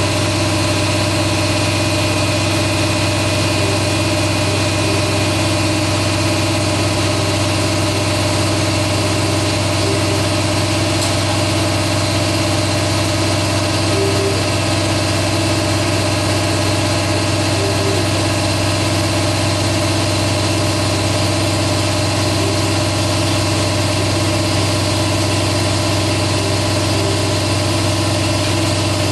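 Shop air compressor running steadily, a constant unbroken hum throughout.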